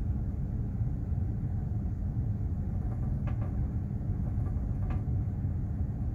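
Steady low rumble of a container ship under way, the engine and hull vibration heard from on deck. Two faint ticks come a little past the middle.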